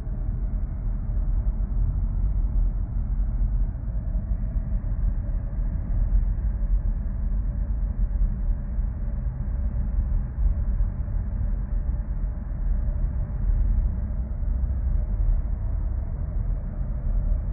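A steady low rumble with a faint steady hum above it, unbroken throughout.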